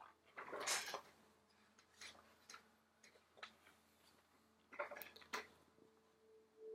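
Faint handling of a picture book with the page being turned: one paper swish about half a second in, then a few soft clicks and rustles.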